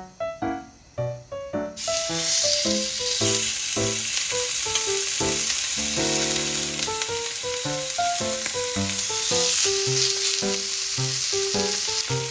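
Raw pork neck steaks sizzling in a hot grill pan, the sizzle starting suddenly about two seconds in as the meat hits the pan and then staying steady. Background piano music plays throughout.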